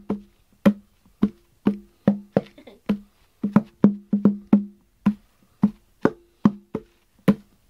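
Hollow cat scratcher tapped by hand like a drum: a rhythmic run of about twenty sharp, pitched knocks on two different notes, a lower and a higher one.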